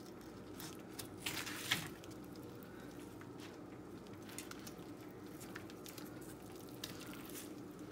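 Fillet knife scraping faintly along a black sea bass's backbone and rib bones as the fillet is cut free, with a few louder scrapes and clicks about a second in, over a faint steady hum. The scrape is the sign that the blade is riding on the bones.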